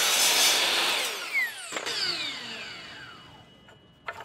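Kobalt sliding compound miter saw running at full speed as it cuts through a wooden dowel, then released and winding down with a falling whine over the next couple of seconds. A couple of light clicks near the end.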